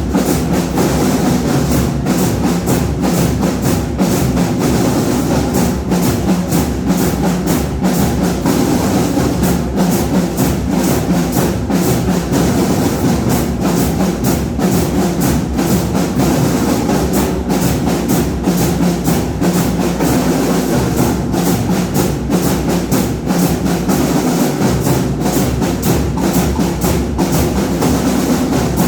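Marching band playing: drums and percussion keep up a fast, dense beat of strikes, with held tones from pitched instruments underneath.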